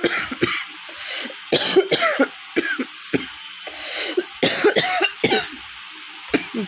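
A woman coughing in several short fits, some single and some a few coughs close together. It is a real cough from a cold and fever, with her throat hoarse and cracked.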